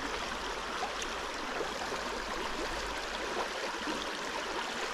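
Shallow river running fast over a stony bed: a steady rush of flowing water.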